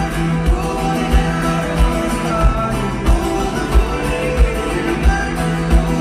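Live music with guitar and a steady low beat about one and a half times a second, with sustained notes held over it.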